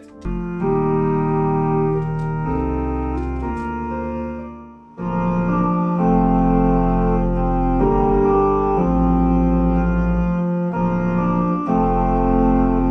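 Electronic home organ played in sustained chords over deep pedal bass notes. The sound fades briefly about five seconds in, then comes back fuller.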